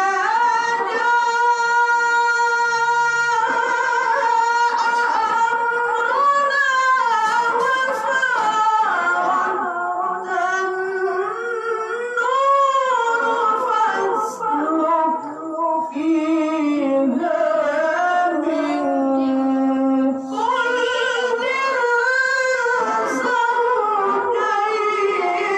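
A male Quran reciter (qari) chanting in a high voice into a microphone. He opens with a long held note, then moves through ornamented phrases that rise and fall, with a short breath about twenty seconds in.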